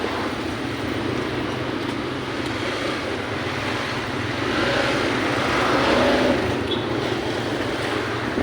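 Motorbike running while riding, with steady engine hum and road and wind noise; it grows louder for about two seconds midway.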